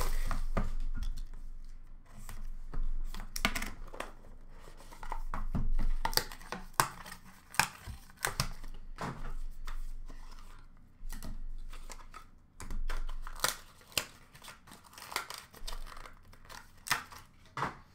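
Packaging being torn and crinkled as a hockey card box is opened, with irregular clicks and knocks of hard plastic card holders being lifted out and stacked.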